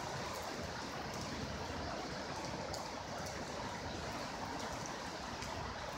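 Steady rush of floodwater running after a heavy downpour.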